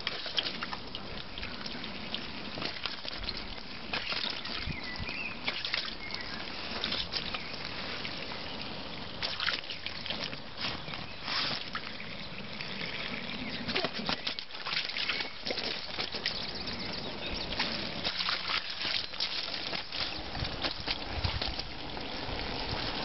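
Thin streams of garden-hose water trickling and splashing into a plastic paddling pool, with irregular splashes and slurps as an Australian Shepherd laps and bites at the streams.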